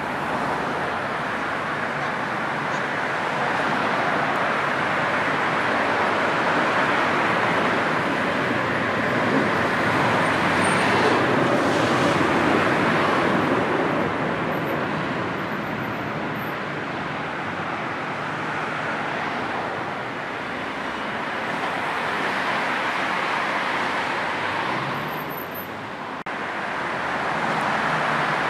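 Steady rush of dense motorway traffic: tyre and engine noise from many cars and vans blending together, swelling about ten to thirteen seconds in and dipping briefly near the end.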